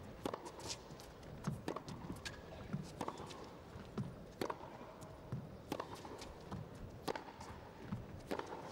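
Tennis rally on a carpet court: the ball struck back and forth by the rackets with sharp pops about every second and a half, with quieter bounces and knocks in between.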